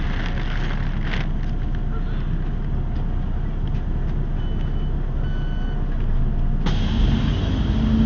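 City bus engine idling at a stop, a steady low rumble. A few short electronic beeps come about halfway through, then a sudden hiss, and near the end the engine grows louder as the bus pulls away.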